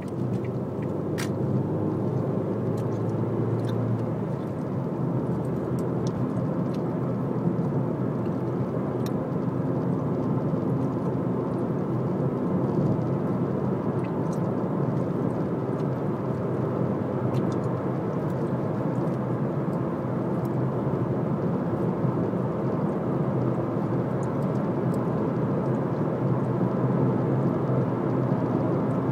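Steady road noise inside a moving car's cabin: tyre roar on tarmac and engine hum at cruising speed, with a few faint clicks.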